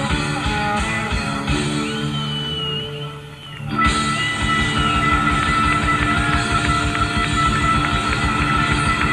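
Guitar-led rock music. It drops away briefly about three seconds in, then comes back with a steady beat.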